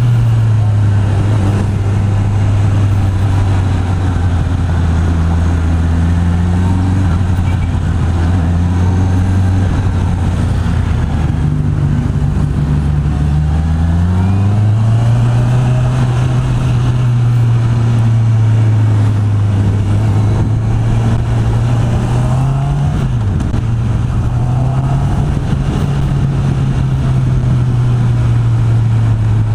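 Honda CB650R's inline-four engine with its stock exhaust running steadily while riding. The engine note drops slightly at first, climbs about halfway through as the bike speeds up, and flicks briefly down and back a little later.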